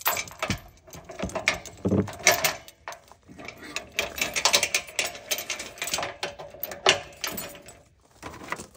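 Steel trailer safety chains and hitch hardware clinking and rattling as they are unhooked and handled, a busy run of metallic clinks and clanks.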